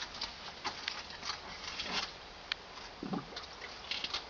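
Water trickling and dripping onto a freshly brazed copper pipe joint to cool it, with scattered small ticks and drips.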